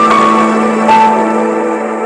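Instrumental background music: held notes over a steady low tone, with a new note coming in about once a second.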